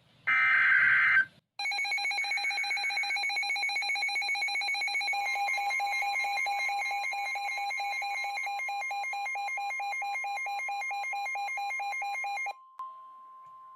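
NOAA Weather Radio sounding an Emergency Alert System activation. A short screeching burst of the EAS digital header data comes first, then the receiver's alarm pulses rapidly for about eleven seconds, with the steady 1050 Hz attention tone under it from about five seconds in. The alarm cuts off near the end and the attention tone continues alone, quieter: it signals that an emergency warning (here a flash flood warning) is about to be read.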